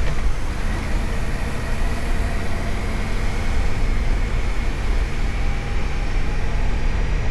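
Indian Scout Sixty V-twin motorcycle running, with a thin, steady, high-pitched whine over the engine's low rumble: the sharp abnormal noise that the owner says has grown worse over nearly a year.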